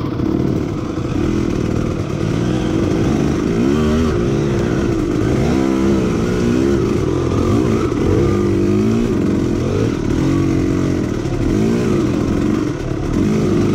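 Two-stroke KTM enduro dirt bike engine revving, its pitch rising and falling again and again with the throttle over rough trail.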